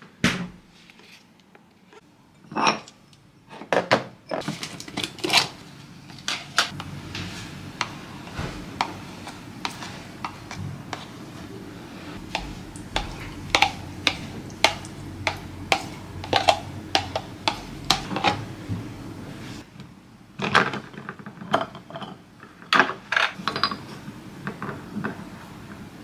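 Kitchen clatter: a refrigerator door shutting near the start, then ceramic bowls and small metal spoons knocking and clinking as they are set down on a stainless-steel counter, many short sharp clicks over a low steady hum.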